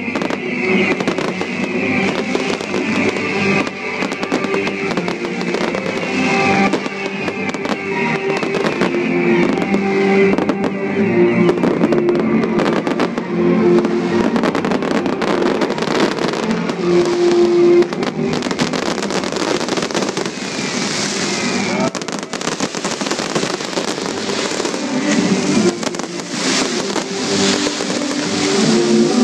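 Fireworks display: rockets bursting and dense crackling glitter shells popping in quick succession, over loud music with sustained notes.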